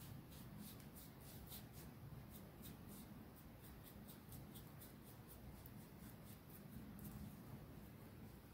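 Faint, quick paintbrush strokes on a small clay leaf, about three a second, stopping about seven seconds in, over a low steady room hum.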